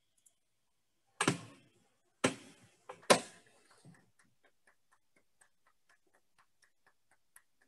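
Three short, loud sounds in the first half, then faint, even ticking about four times a second, like a clock.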